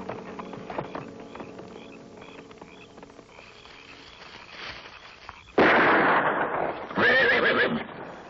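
Two loud sudden rifle shots about a second and a half apart, each with a long echoing decay, after film score music fades out.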